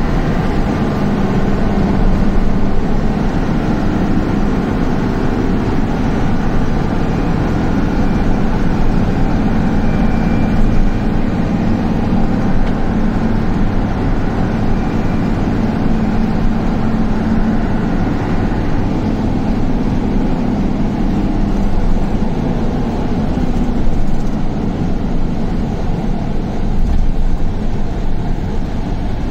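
Steady engine and road noise of a vehicle driving along a road, heard from inside its cabin.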